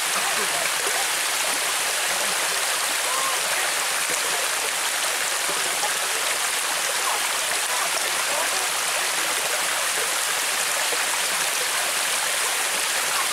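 Small waterfall pouring into a rock swimming hole: a steady, unbroken rush of water.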